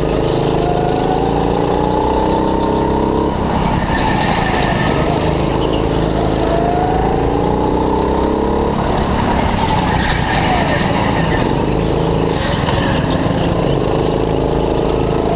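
Go-kart engine running hard, its pitch climbing steadily and then dropping sharply twice, about three and nine seconds in, as the throttle is lifted. A heavy rumble runs beneath it.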